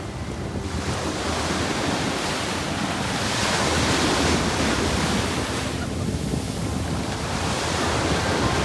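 Sea waves washing onto a beach, with wind buffeting the microphone; the surf swells about three seconds in and again near the end.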